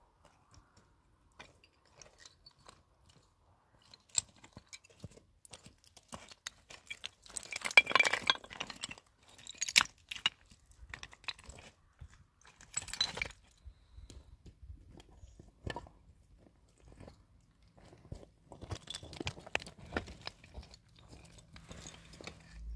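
Irregular crunching and clicking handling sounds with a few light clinks, louder in short bursts about 8, 13 and 20 seconds in.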